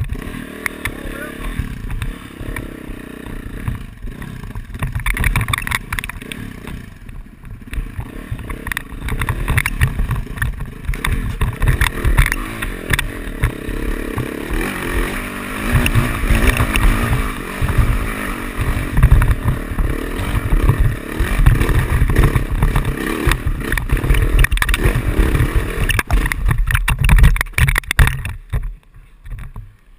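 Yamaha YZ450F dirt bike's four-stroke single-cylinder engine revving under load up a steep rocky climb, rising and falling in surges with the throttle. It drops away sharply near the end.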